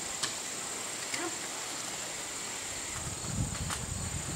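Steady high-pitched insect drone, cricket-like, with a few sharp clicks about a second apart and a low rumbling noise near the end.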